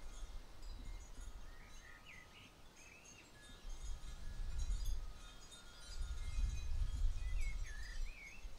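Gusts of wind rumbling on the microphone, loudest in two stretches in the second half. Over it a bird repeats a short phrase of rising and falling notes about two seconds in and again near the end, with other faint birdsong.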